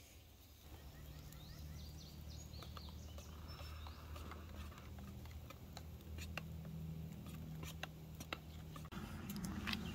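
Hot chocolate being stirred in a steel cup set on a small wood-burning Firebox stove: scattered light clicks from the spoon and the burning sticks over a low steady hum. Birds chirp faintly in the first few seconds.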